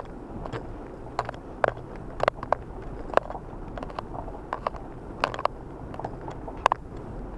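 Car moving slowly along a snow- and slush-covered lane, heard from inside the cabin: a steady low rumble of the engine and tyres, with irregular sharp clicks and crackles, two or three a second.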